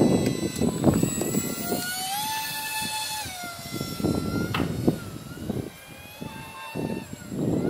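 Small brushless electric motor and three-blade propeller of a cardboard RC model plane whining in flight, its pitch rising about two seconds in, holding, then falling away and shifting again as the throttle and distance change. A gusty low rumble sits under it at the start.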